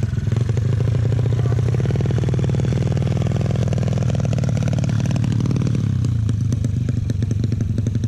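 Single-cylinder engine of a tuned 200cc Yamaha Mio drag bike running at a fast idle, engine speed rising a little in the middle and settling back near the end.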